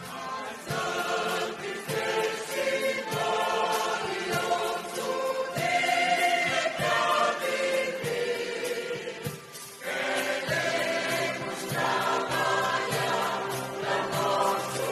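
Choir singing a gospel song, in sustained sung phrases with a short break about ten seconds in.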